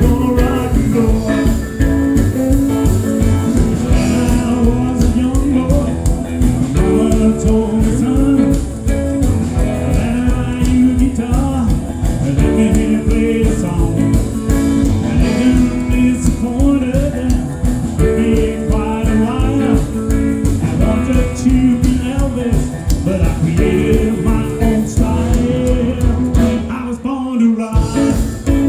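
Live rock and roll band playing, with guitar, drums and a singing voice over a steady beat. The bass and drums drop out for about a second near the end.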